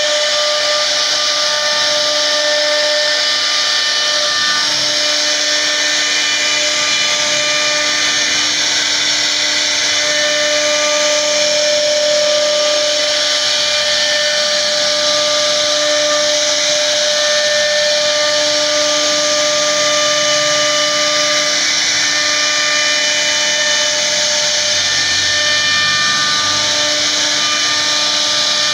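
CNC router spindle milling a relief into a wooden door panel: a steady whine from the spindle over the continuous noise of the bit cutting the wood.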